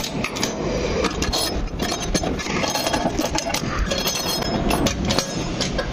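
Metal clinks and knocks from the swing bolts on a silo trailer's manhole lid as they are unscrewed by hand and their handles swung aside, a few with a short metallic ring.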